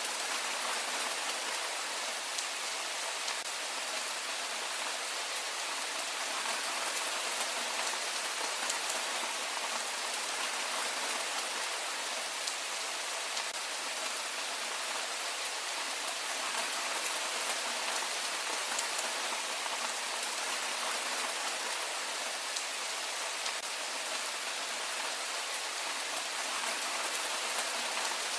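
Heavy rain falling steadily: a dense, even hiss of drops with fine individual drop ticks, unchanging throughout.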